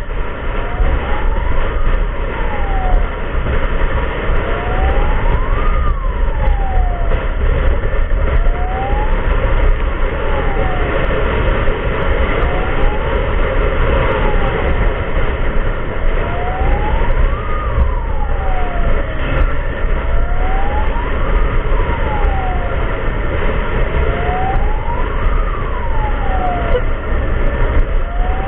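Emergency siren in wail mode, rising and falling in pitch about once every four seconds over a heavy, steady low rumble of vehicle and road noise.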